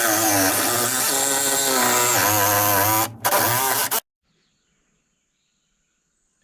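Ryobi cordless saw running under load as it cuts along a marked line, a steady motor pitch that wavers as the blade works. About four seconds in, the sound cuts off suddenly into silence.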